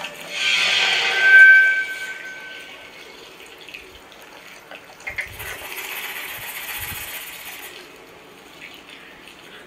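A rushing, hissing noise in two swells: a louder one in the first two seconds with a thin steady tone running through it, then a fainter, higher one from about five to eight seconds in.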